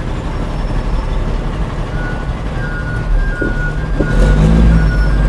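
Heavy truck's diesel engine running, heard from inside the cab, with the revs rising about four seconds in. From about two seconds in, a high beeping tone sounds in a steady on-off pattern.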